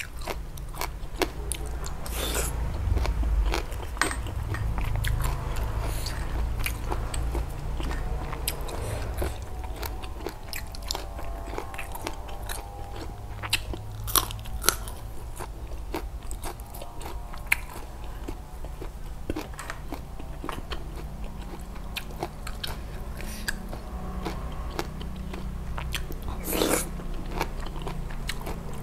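A person chewing and crunching food close to a clip-on microphone, with many sharp crunches and one loud crunch near the end. Midway she bites into a fresh red chili.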